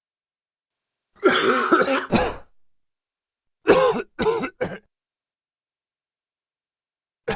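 A man's dry, forced coughing: one longer cough about a second in, then three short coughs in quick succession, then a pause before a new cough starts at the very end.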